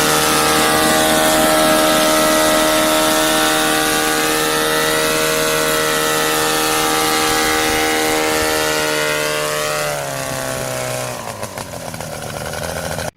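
The small petrol engine of a homemade helicopter runs steadily at a constant speed, then drops in pitch about ten seconds in as it slows down.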